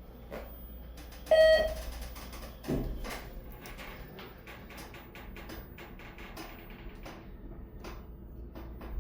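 ThyssenKrupp passenger elevator: a single chime rings briefly about a second in, then a low thud and a run of light clicks and rattles over the steady hum of the car.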